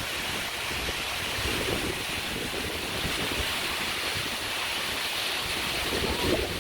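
Steady rushing of a tall waterfall, a continuous even hiss, with wind buffeting the microphone.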